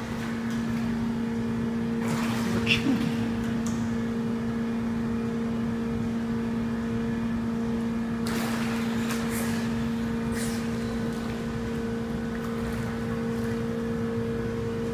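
A steady low mechanical hum, with bursts of water splashing from a child swimming in a pool about two seconds in and again around eight to ten seconds in.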